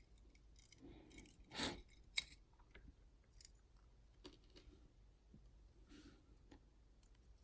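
Scattered small metallic clicks and taps, the sharpest about two seconds in, as the last top pin is worked out of a dimple lock cylinder.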